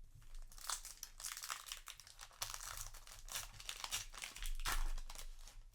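Yu-Gi-Oh! booster pack's foil wrapper crinkling and being torn open: a dense run of crackles and rustles, loudest shortly before the end.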